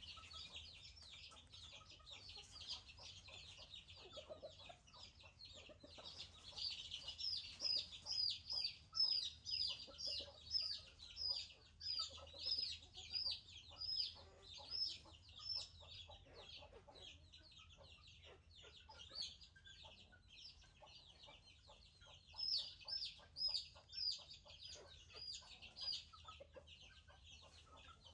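Chickens calling: short, high, falling peeps repeated about twice a second. They come in two runs, a long one starting about six seconds in and a shorter one near the end, with fainter lower clucks among them.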